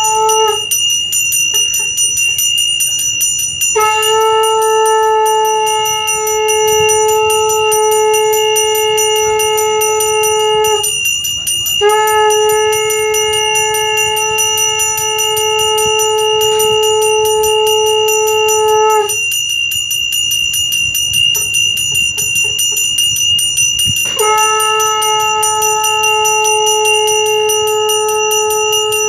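Brass hand bell (ghanta) rung rapidly and continuously during an aarti lamp offering. Over it, a conch shell is blown in long held notes of about seven seconds each, with short breaks between them.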